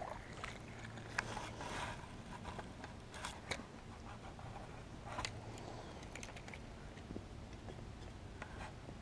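Fishing reel being cranked, with scattered clicks, scrapes and rustles of rod and line being handled as a small fish is reeled in and swung out of the water.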